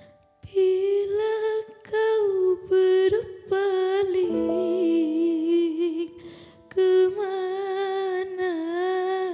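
A woman's voice singing a slow, held melody with vibrato over sparse piano chords; the voice enters about half a second in, and a new piano chord sounds about four seconds in.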